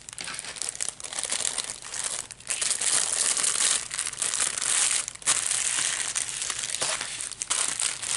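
Clear plastic bags and wrapping of a diamond painting kit crinkling and crackling continuously as they are gathered up and pushed into their sleeve.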